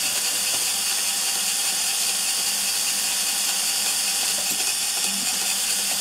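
Small fischertechnik geared electric motors running steadily under infrared remote control, a continuous high whir of motor and gear teeth that cuts off abruptly near the end.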